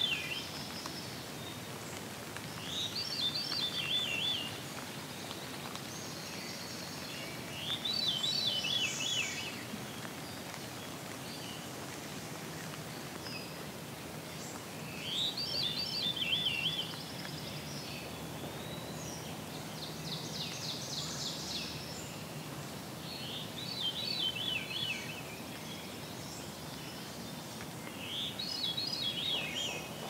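Veery singing its downward-spiraling, fluty phrase five times, each about a second and a half long and several seconds apart, over steady low background noise. A different bird gives a brief, fast high trill about twenty seconds in.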